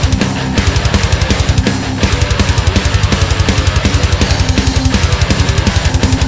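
Heavy hardcore metal music: distorted guitar, bass and a drum kit. From about two seconds in, the bass drum plays fast, steady beats.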